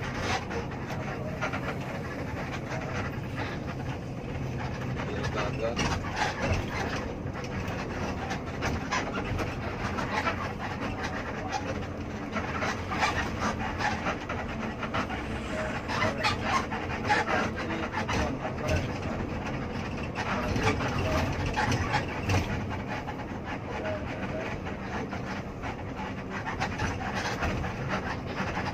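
Intercity bus under way, heard from inside the cabin: a steady engine hum and road noise with frequent rattles and clicks from the interior.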